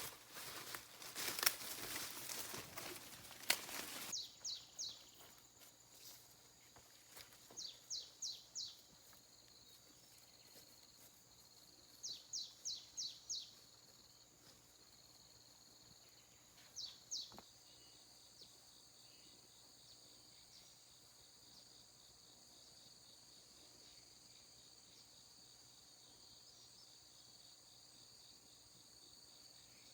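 Forest insects droning steadily on a high pitch, while a bird calls in quick runs of three or four falling notes, four times within the first seventeen seconds. A burst of rustling fills the first four seconds and cuts off abruptly.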